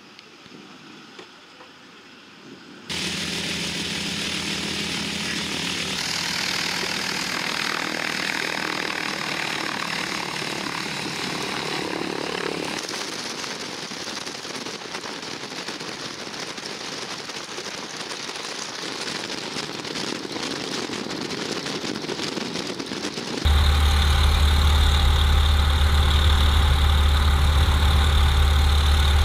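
Faint at first, then a warbird's radial engine running steadily, with abrupt shifts in its sound at cuts between takes. About 23 seconds in it jumps much louder into a deep, steady drone heard inside the cockpit as the plane rolls down the runway.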